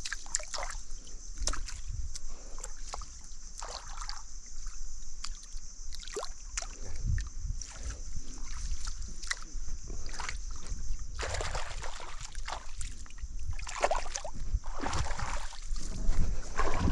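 Water sloshing and splashing in irregular spurts, with scattered sharp knocks, over a steady high-pitched hiss; the splashing is loudest near the end.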